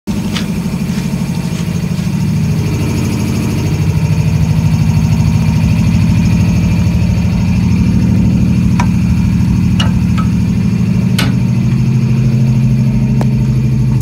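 GE AC44CW diesel-electric locomotive's 16-cylinder engine running steadily close by: a loud, deep, pulsing drone. A few sharp knocks from about nine seconds in as the locomotive's steel steps are climbed.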